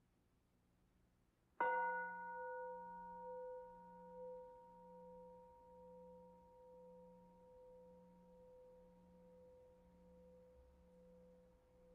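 Singing bowl struck once about a second and a half in, then ringing on with a slow, regular pulsing as it fades. It is sounded to open a time of silent reflection.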